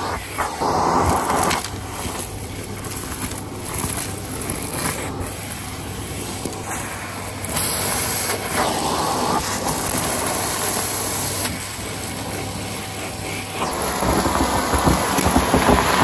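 Shark PowerDetect Pet stick vacuum running with its crevice tool, a steady rush of suction as it picks up dust and grit along a carpet edge, with scattered small ticks. The rush grows louder near the end.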